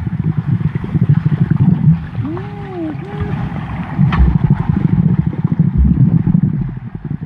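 Pool water heard through a camera held underwater as swimmers dive in and kick past: a dense low rumble of churning water and bubbles with crackling. A sharp click comes about four seconds in, and two short tones rise and fall in pitch about two and a half seconds in.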